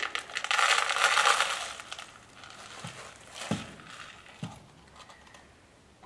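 Birdseed poured from a small plastic bag into a cardboard milk-carton bird feeder: a dense, dry rattle of seeds with plastic crinkling for about the first two seconds, then a few soft knocks as the carton is handled.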